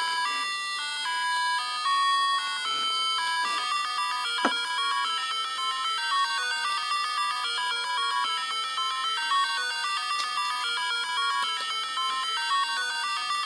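An electronic tune of quick, stepped beeping notes that sounds siren-like, with a single sharp click about four and a half seconds in.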